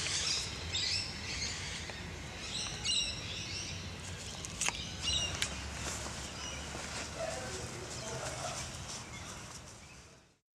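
Outdoor ambience of birds chirping in bursts over a steady low background rumble, with a couple of sharp ticks near the middle. It all fades out about ten seconds in.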